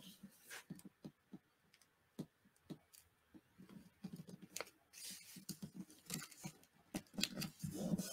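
Paper being handled and pressed onto a freshly glued page: faint scattered taps and crinkles of paper, becoming busier rustling and rubbing strokes about halfway through as the strip is smoothed down.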